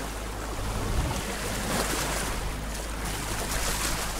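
Water washing along a sailboat's hull, with wind buffeting the microphone as a steady low rumble.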